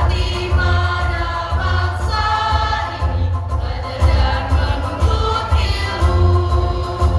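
Mixed choir singing in chorus, accompanied by an electronic keyboard with a pulsing bass line.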